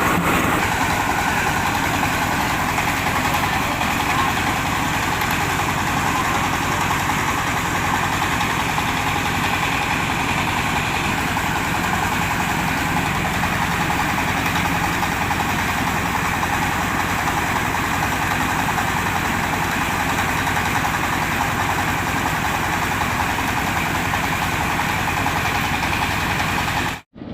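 Diesel engine of a mobile rice mill running steadily together with the milling machinery, a continuous even mechanical noise that cuts off abruptly near the end.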